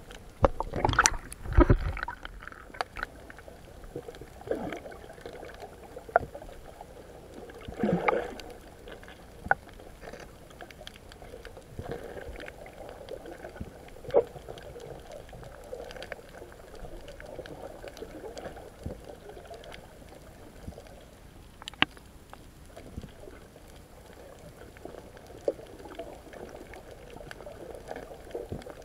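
Muffled underwater sound picked up by a camera held beneath the surface: a steady dull watery rush, with a few heavier whooshes near the start and about eight seconds in, and scattered sharp clicks.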